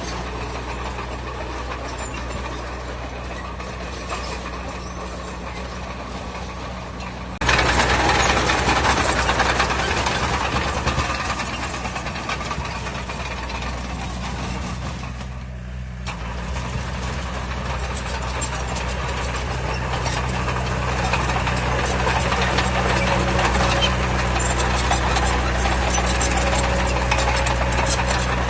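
Heavy diesel earthmoving machinery running steadily under work. Its engine sound jumps abruptly louder about seven seconds in, dips briefly, then swells again toward the end.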